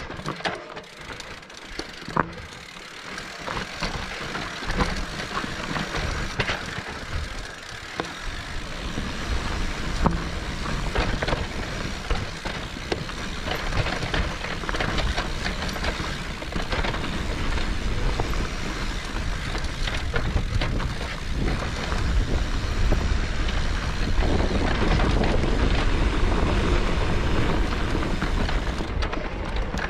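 Electric mountain bike ridden uphill over rough, rocky trail: a continuous crunch and rattle of tyres, chain and frame with frequent sharp knocks. It grows louder toward the end.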